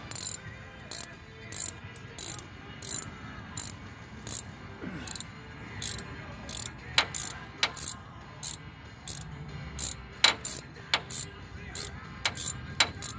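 Hand socket ratchet clicking in a steady rhythm, about one and a half short clicks a second, as it is swung back and forth to loosen the 5/16 screw of the rack-and-pinion boot clamp.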